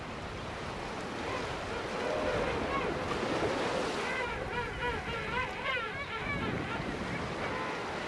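Surf and wind with king penguins calling over them: from about two seconds in, several calls that waver up and down in pitch.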